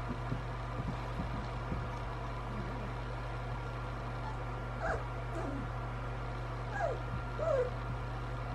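A litter of young puppies whimpering and squeaking: a few short, high, sliding cries, mostly in the second half. A steady low hum runs underneath.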